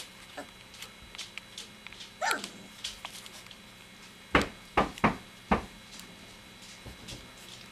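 Three-week-old golden retriever puppies play-fighting: one gives a single falling yelp about two seconds in. Four short, sharp sounds follow in quick succession around the middle, with light scuffling ticks throughout.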